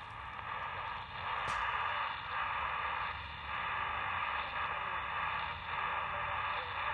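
AM transistor radio's speaker hissing with static while tuned to a weak, distant station on 1160 kHz (KSL) that can just barely be heard in the noise. The hiss swells and dips every second or so as the signal fades, which the operator puts down to the station wavering between ground wave and sky wave.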